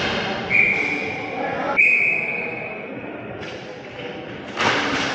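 Referee's whistle blown twice, two long shrill blasts with the second a little longer, over rink chatter; a sharp knock near the end.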